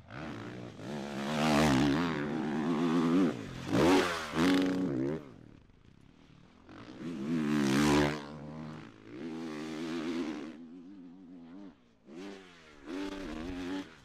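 Four-stroke motocross bike engine revved hard and let off again and again, its pitch rising and falling with the throttle, in about five loud spells a second or two long with quieter dips between.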